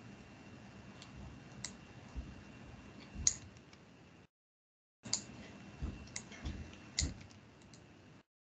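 Scattered clicks of a computer mouse, about half a dozen, over faint background noise picked up through a video-call microphone; the sound cuts out completely for under a second about four seconds in.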